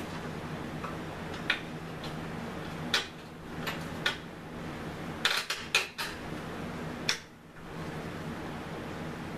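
Sharp metallic clinks and knocks of tools and steel suspension parts being handled as a lower control arm's bushing and bolt are worked into their bracket: about ten separate strokes, with a quick cluster a little past the middle.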